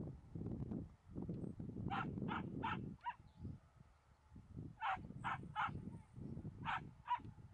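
A dog barking in quick runs of short barks: four, then three, then two.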